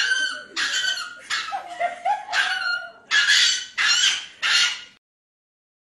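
A small long-haired dog yelping and screaming in reaction to a vet's injection in its foreleg. About seven shrill cries come in quick succession, then cut off suddenly.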